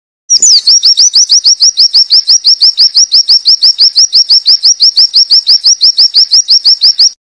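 White-eye (pleci) singing a long 'wit wit' run: one unbroken series of identical short swooping whistled notes, about seven a second, that stops abruptly near the end.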